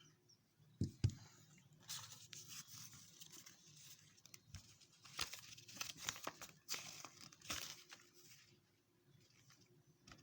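Two knocks about a second in, then several seconds of crinkling and tearing as the phone's packaging is handled and torn open.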